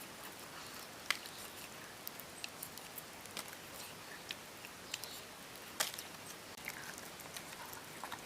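Scattered faint clicks and crackles from handling burnt wild yams, with a soft hiss between them.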